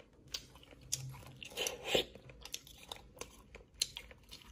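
A person chewing a mouthful of baked snail-shell filling close to the microphone, with small sharp clicks of a metal spoon scraping inside the shell.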